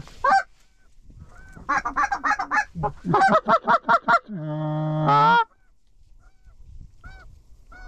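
Canada goose calls blown by hand: two quick, loud runs of clucks and honks, then one drawn-out low note that breaks upward at its end, followed by a few fainter honks.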